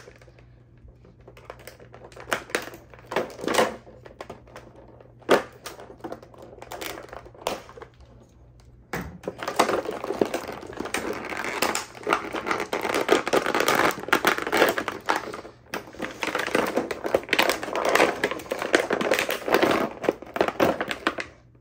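Clear plastic blister packaging crackling and crinkling as action figures are worked free of it: a few scattered sharp clicks and snaps in the first half, then dense, continuous crackling from about halfway through.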